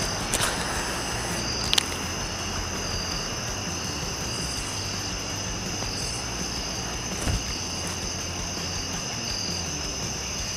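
Evening insect chorus: a steady, unbroken high trilling at several pitches over a low rumble, with a sharp click about two seconds in.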